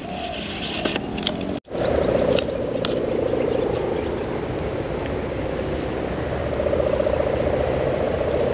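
Sendaren (kite hummer) of a large Pegon kite, its plastic-film 'gerr' reed buzzing in the wind: a steady rasping drone that grows a little louder near the end.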